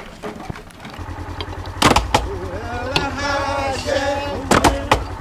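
Side-by-side utility vehicle's engine idling, a low even pulse that starts about a second in, with a few sharp knocks over it.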